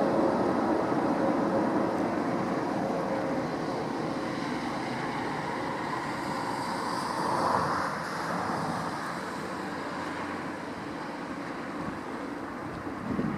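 Jet airliner engine noise, a steady rumble that swells briefly midway and then slowly fades.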